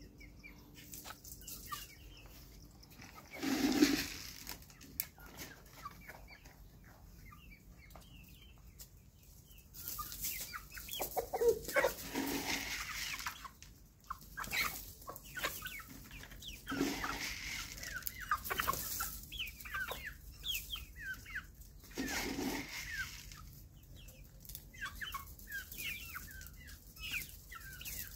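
A flock of hens and roosters clucking while they feed, with many short high chirps throughout. A few louder noisy bursts come about four seconds in and again several times through the middle.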